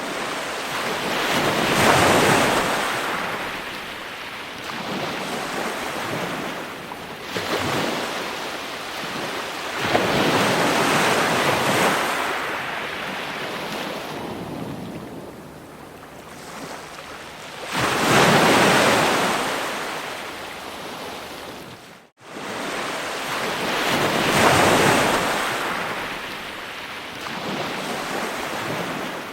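Ocean waves breaking on a shore: surges of surf swell up and wash out every several seconds, some much louder than others. The sound cuts out for an instant about three-quarters of the way through.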